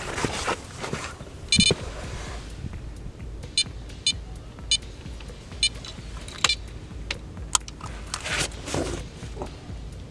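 Electronic carp bite alarm beeping as line is taken from the rod: a fish picking up the bait. A quick string of beeps comes about a second and a half in, then five single beeps spaced half a second to a second apart.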